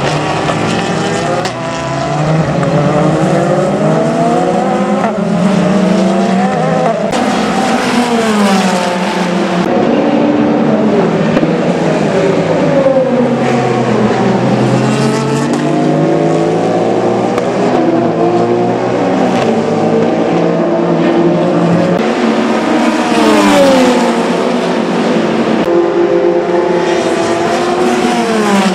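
Endurance prototype race cars at speed, among them a Peugeot 9X8 with its twin-turbo V6 hybrid. Several engines overlap, their pitch repeatedly rising and falling as the cars accelerate, change gear and slow for corners.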